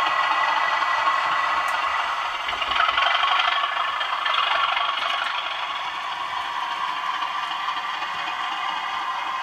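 Model Class 37 diesel locomotive running along the layout: a steady, thin-sounding diesel engine sound from its DCC sound decoder, mixed with the rattle and clatter of the model's wheels on the track, easing off slightly in the second half.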